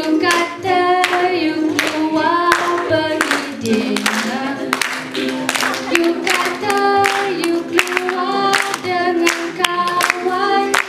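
A woman singing a melody into a microphone with ukulele accompaniment, over a steady beat of sharp strokes about twice a second.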